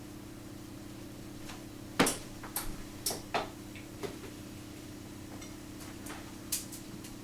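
Several short clicks and knocks of kitchen items being handled, the loudest about two seconds in and a few more close after it, over a steady low hum.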